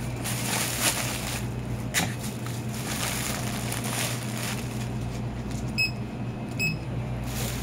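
Shop background: a steady low hum with handling noise and a few light clicks, then two short, high electronic beeps about a second apart near the end.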